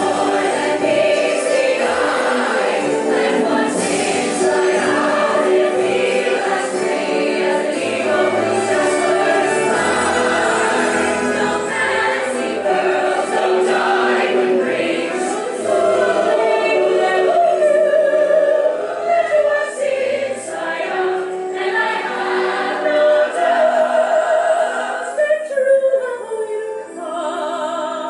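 Musical-theatre song: a chorus of voices singing over orchestral backing, thinning out near the end.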